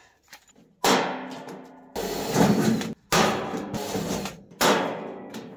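Thin aluminum sheet clanging and ringing as it is handled, with three sharp bangs that each fade over about a second. About two seconds in comes a short burst from a cordless drill, starting and stopping abruptly, as it drills the sheet for rivets.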